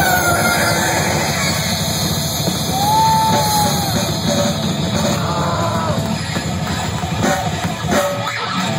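Live metal band playing loud: drum kit, bass and distorted electric guitar with a vocalist yelling. Near the end the playing breaks into a few separate hits.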